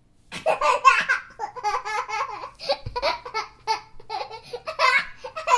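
Young child laughing in bursts of giggles and belly laughs after a brief pause, with some babbling between.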